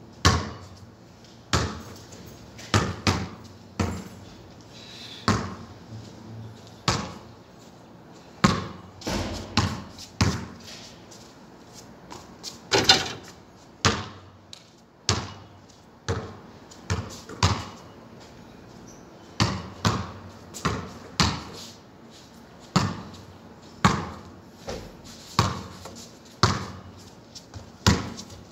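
Basketball bouncing on a concrete court: a long, irregular series of sharp bounces, often two or three in quick succession, with the loudest strike about halfway through.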